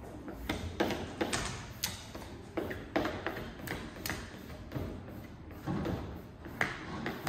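Hand-held plastic squeegee being pushed over vinyl on a sign board: a quick, uneven run of short scraping strokes, roughly two a second, with the odd tap.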